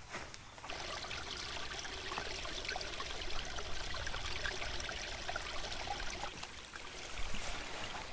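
A small stream running and trickling, with many small splashes; it starts suddenly just under a second in.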